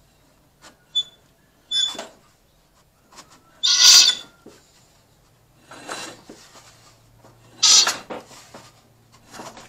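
A hand rubs and turns the riding mower engine's round flywheel screen, making a few short rasping scrapes with small clicks about one to two seconds in. The two loudest scrapes come about four and eight seconds in.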